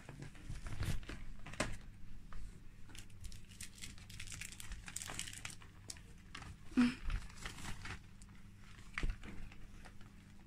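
The crinkly fabric walls and door flap of a KONG Play Spaces Bungalow, a pop-up cat play house, rustling and crackling in irregular bursts as a kitten pushes through the flap and scrabbles about, with one louder bump about two-thirds of the way through.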